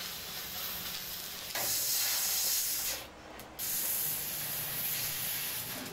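Oxy-fuel cutting torch hissing steadily as it cuts through steel plate, with a short drop about three seconds in.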